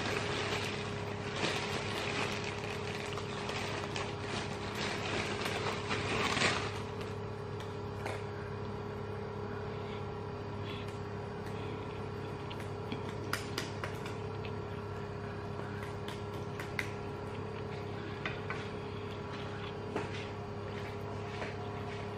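Eating by hand: fingers work rice and crispy chilli tempeh on a plate for the first six seconds or so, then quieter chewing with scattered small crunchy clicks, over a steady low hum.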